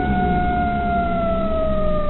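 A siren-like wail that holds steady and then slides slowly down in pitch, over a low rumbling noise.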